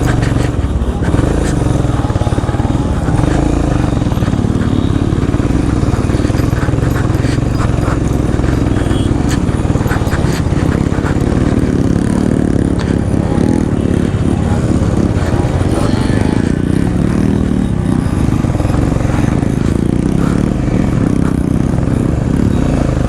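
Royal Enfield Himalayan's single-cylinder engine running at low trail speed, its note wavering up and down with the throttle.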